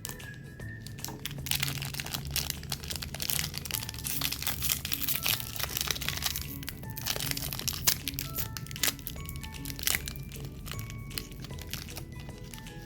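Plastic snack wrapper crinkling and crackling as it is handled and unwrapped, dense through the first half and thinning to scattered crackles later, over background music.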